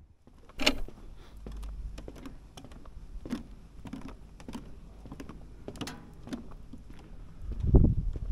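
Footsteps on a wooden boardwalk: hard soles tapping at a steady walking pace, about one and a half steps a second. A low rumble swells briefly near the end and is the loudest sound.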